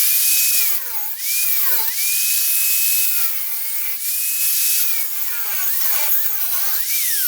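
Angle grinder with a cutoff wheel grinding the steel of a tailgate hinge, cleaning up its slotted opening: a high motor whine that repeatedly drops in pitch as the wheel is pressed into the metal and climbs back as it eases off, over a loud grinding hiss. It stops abruptly at the end.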